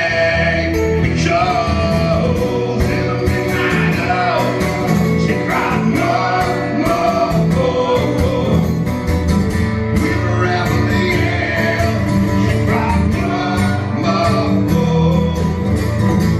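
Live acoustic rock music: two acoustic guitars strumming while a singer sings into a microphone.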